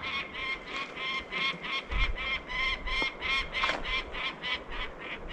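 Bird of prey calling in a rapid, steady series of short, harsh notes, about four a second: an alarm call that the hikers take for a bird defending a nearby nest.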